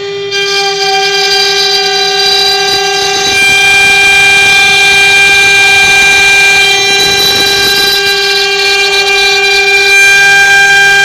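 CNC router spindle running with a steady high-pitched whine as the bit cuts through 30 mm thick wood, with cutting noise underneath. The level dips briefly at the start, then gets a little louder about three seconds in.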